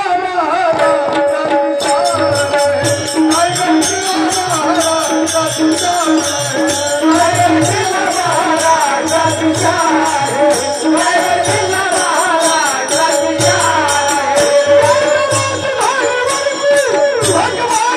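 Marathi folk music: a melody and singing over held drone tones, with fast, steady jingling percussion and regular low drum beats.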